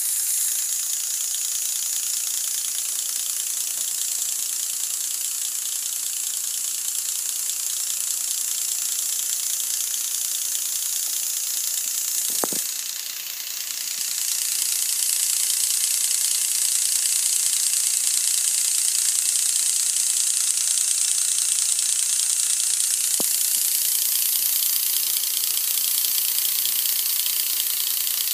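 LEGO Technic electric motors and gear trains whirring steadily with a high hiss. The whir dips briefly a little before halfway, where there is a sharp click, and a second click comes about two-thirds of the way through.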